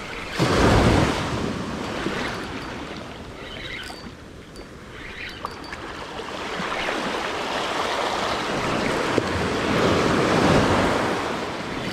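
Small surf breaking and washing up a sand beach: one wave crashes sharply about half a second in, and another swells up and washes in over the second half.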